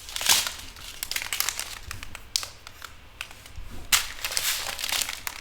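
Small plastic bags of diamond painting drills crinkling as they are handled and sorted, an irregular run of crackles with louder handfuls about a third of a second in, around two and a half seconds, and around four seconds.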